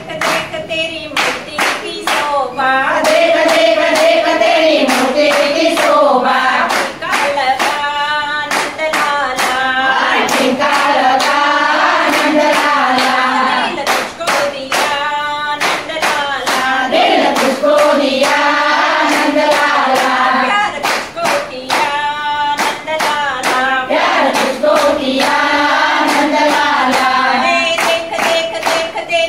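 A women's group singing a Krishna bhajan together, with steady hand-clapping keeping the beat.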